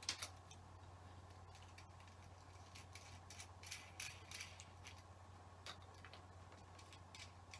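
Faint, irregular clicks and ticks from a fly reel being handled on the rod, some coming in quick little clusters, over a low steady hum.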